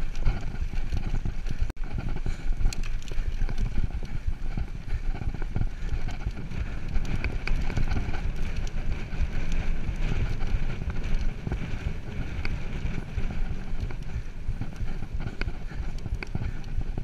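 Mountain bike riding over a dirt singletrack: a steady run of knocks and rattles from the bike and tyres over the bumpy ground, with wind rumbling on the microphone.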